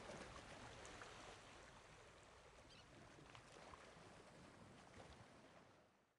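Near silence: a faint, even hiss fading away, ending in dead silence near the end.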